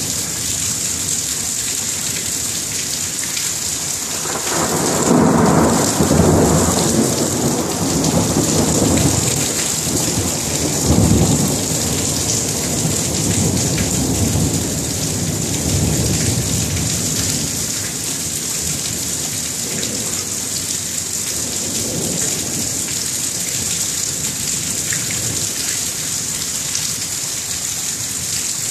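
Thunderstorm: steady rain throughout, with thunder rolling in about four seconds in and rumbling for roughly twelve seconds, a second louder crack coming about eleven seconds in before the rumble fades.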